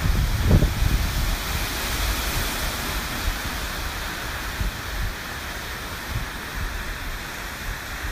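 Hurricane wind and rain making a steady rushing hiss, with gusts buffeting the microphone in the first second.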